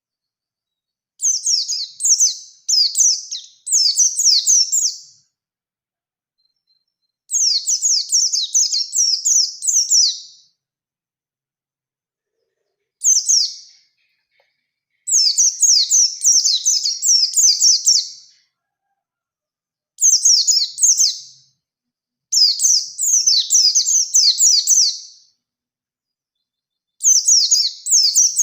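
Pleci (white-eye songbird) singing fast, high-pitched chirping phrases, each one to three seconds long, broken by pauses of a second or two.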